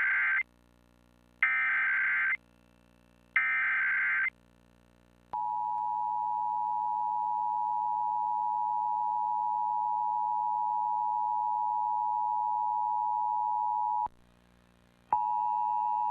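Emergency Alert System broadcast tones. First come three buzzy digital data bursts, each about a second long and about a second apart. Then a steady attention tone holds for about nine seconds, stops, and another steady tone starts a second later, near the end. Together they announce an incoming tornado warning.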